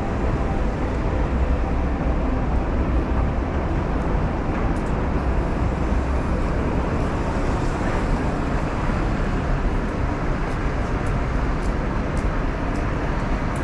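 Steady city street noise: a continuous wash of traffic and urban background, strongest in the low end.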